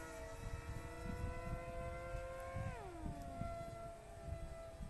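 Whine of FPV racing flying wings' electric motors and propellers, several steady tones at once; about two-thirds of the way in one whine drops sharply in pitch as a wing flies past. Wind rumbles on the microphone underneath.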